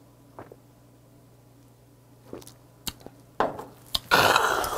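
A man drinking down a glass of somaek (beer mixed with soju), with a few small clicks from the glass and swallowing, then a loud breathy 'kyaa' exhale after the drink, starting about four seconds in.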